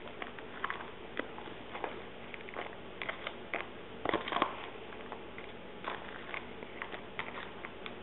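Plastic spoon stirring a damp oatmeal-and-fruit mix in a plastic food container, with irregular clicks and scrapes against the container.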